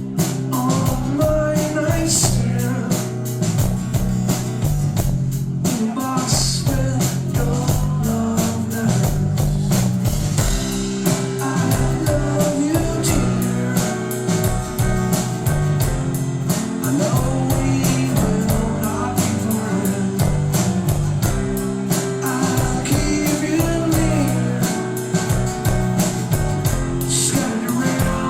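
Rock band playing a song live: electric guitars, bass and a drum kit keeping a steady beat, with a singer's voice over them.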